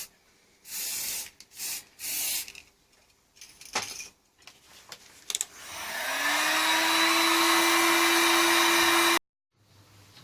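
Several short hissing bursts, then a small electric motor spins up and runs steadily for about three seconds before cutting off abruptly.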